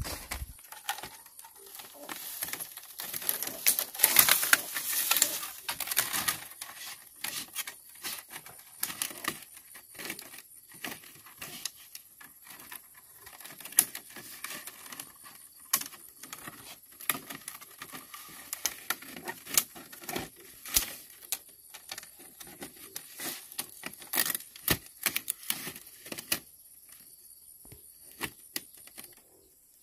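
Split green bamboo strips being woven around upright bamboo stakes: rustling and scraping with many sharp clicks and taps as the strips are bent and pushed into place. It is loudest a few seconds in.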